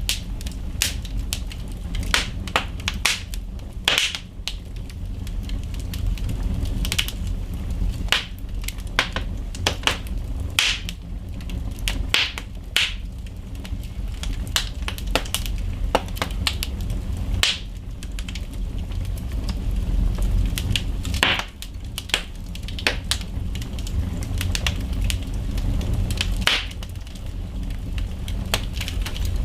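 Wood fire burning in a fireplace, crackling and popping irregularly with sharp snaps, over a steady low rumble.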